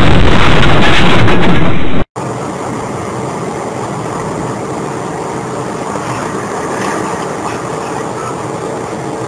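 Vehicle noise from dash-cam recordings: about two seconds of very loud, distorted rumble, then a cut to a steadier, quieter drone of a car driving.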